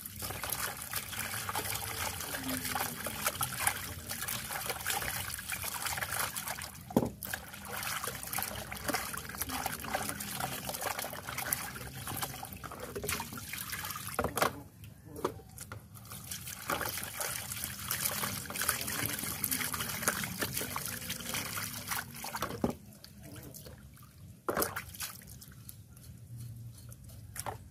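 Pig offal being washed by hand in water with lime: water trickling and dripping with wet handling clicks, breaking off briefly in the middle and again near the end.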